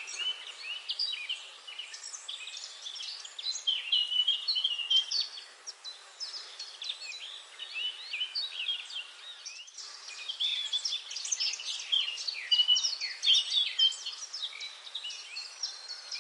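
A dense chorus of many small birds singing, with short chirps and trills overlapping one another throughout.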